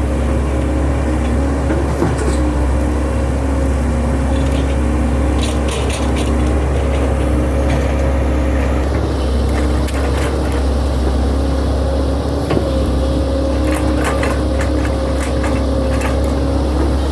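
SANY hydraulic excavator's diesel engine running at a steady speed, with light clicks about 5 seconds in and again from about 13 seconds on.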